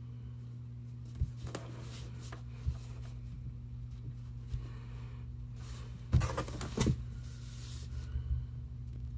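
Paintbrush and painting supplies handled on a wooden table: a few light taps and clicks, then a louder cluster of knocks and rattles about six seconds in, over a steady low hum.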